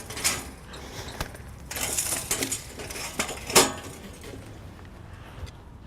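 A folding bicycle being collapsed: metal frame parts and hinges clinking and rattling, with one loudest clank a little past halfway.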